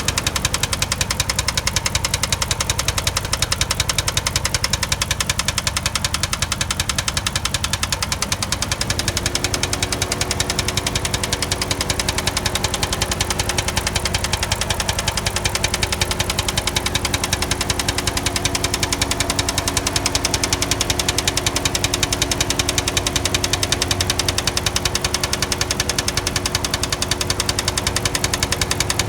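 2005 Chrysler 300C's 5.7-litre Hemi V8 running steadily with a fast, even ticking over the engine sound. About nine seconds in, a steady hum joins.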